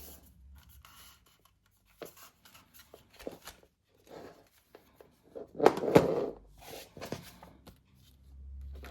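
Handling noises: scattered light clicks, taps and rustles, with a louder clatter of knocks about six seconds in.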